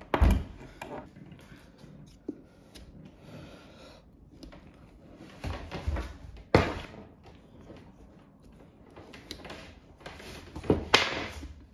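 Tyre levers and hands working a stiff old rubber tyre off a OneWheel Pint's wheel hub: scraping and clunking, with sharp knocks just after the start, around six seconds in (the loudest a crisp click), and again near the end.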